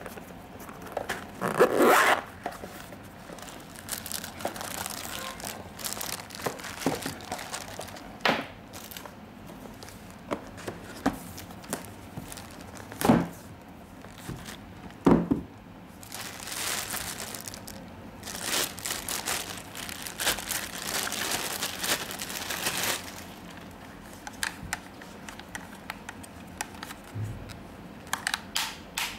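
Unboxing handling noise from a headphone case, box and packaging: rustling and crinkling with scattered clicks and knocks, two louder knocks about halfway, and several seconds of scratchy rustling past the middle.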